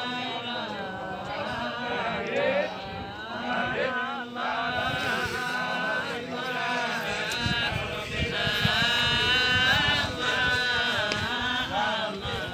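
Islamic religious chanting: a melodic recitation with long, wavering held notes and ornamented runs, carrying on without a break.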